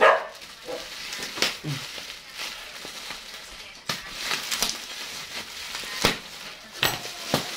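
Plastic wrapping and packing tape around a soft parcel crinkling and rustling as it is cut and pulled open with scissors, with a few sharp snaps or snips, one about four seconds in and two more near the end.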